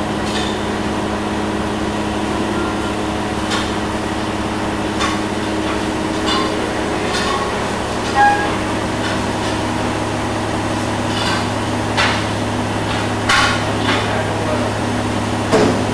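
Heavy diamond-plate steel cabinet being shoved across a concrete floor, giving about ten irregular metallic knocks and clanks, over a steady low hum.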